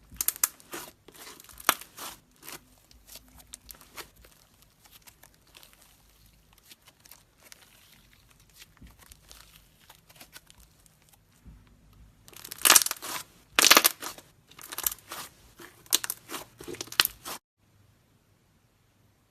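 Bubbly slime being squeezed and worked by hand, its trapped air bubbles popping and crackling in sharp clicks. It starts with a run of pops and goes sparse and quieter through the middle. A loud, dense run of pops follows in the last third, then the sound stops shortly before the end.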